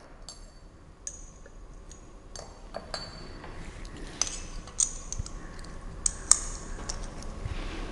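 Light clinks and taps of laboratory glassware: a glass dropper touching the neck of a reagent bottle and a glass test tube, each clink with a brief high ring. They come scattered through, several more close together in the second half.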